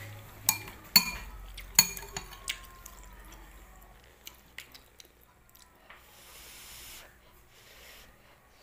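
Metal spoon clinking against the bowl about five times in the first few seconds, sharp and fairly loud, as macaroni soup is scooped. After that come softer, wet eating sounds: spooning, sipping and chewing the soup.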